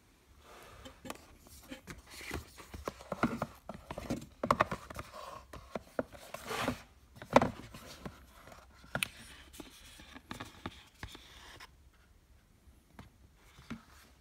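Cardboard eyelash boxes being handled, slid off a stack and one opened: scraping and rustling with sharp taps and clicks. The loudest tap is about seven seconds in, and it goes quieter after about eleven seconds.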